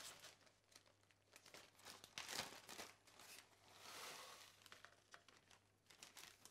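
Faint crinkling and rustling of a clear plastic bag as crushed biscuits are shaken out of it into a ceramic mixing bowl, with a busier patch of crackle a little after two seconds.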